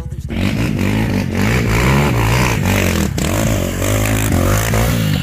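Off-road quad's engine revving hard and unevenly close by, the pitch rising and falling again and again as it claws up a steep muddy climb. A single sharp knock about three seconds in.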